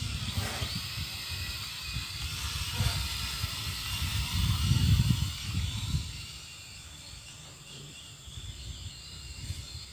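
Toy quadcopter fitted with the small motors of a UDI U46 drone, giving a thin high whine as it flies overhead in strong wind. Gusts buffet the microphone as a low rumble that dies down about six seconds in.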